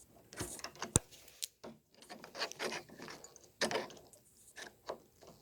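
Hand-working noises of a deadbolt being fitted into a door: scattered scrapes, rubs and small clicks of the lock's metal parts and a screwdriver against the door, with one sharp click about a second in.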